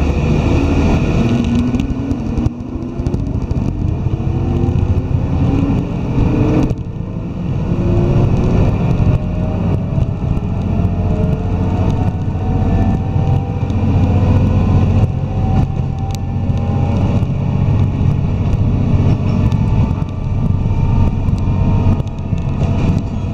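Diesel railcar accelerating away from a station, heard from inside the cabin: a steady low running rumble under a whine that climbs slowly in pitch as the train gathers speed, with a brief dip in level about six and a half seconds in.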